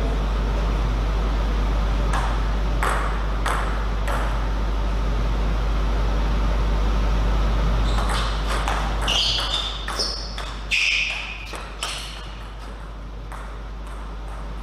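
Table tennis ball being hit back and forth in a rally: four sharp clicks about half a second apart, then a quicker run of clicks in the second half, over a steady low hum.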